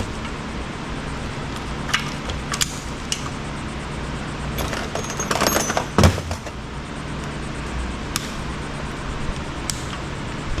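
A battery charger's metal case being pulled apart by hand: scattered clicks and clinks of sheet metal, then a scraping rattle about halfway through that ends in a solid knock. A steady low hum sits underneath.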